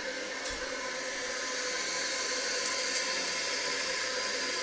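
Original Kohler Master 400A fill valve in a 1993 Kohler Wellworth Lite toilet tank, hissing steadily as water refills the tank after a flush. The refill is slow.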